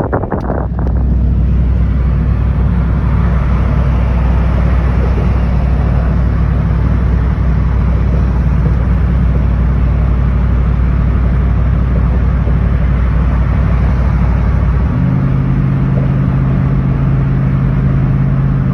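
Engine running with a steady low drone. About 15 seconds in, the hum jumps to a higher pitch.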